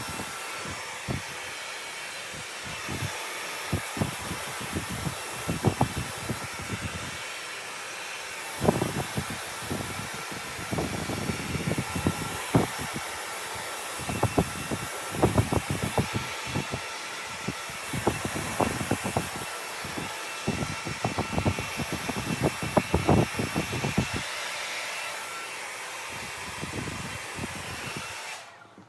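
Steady fan-like rushing noise with many irregular clicks and knocks over it, thickest through the middle, like items being handled; the rushing noise cuts off suddenly near the end.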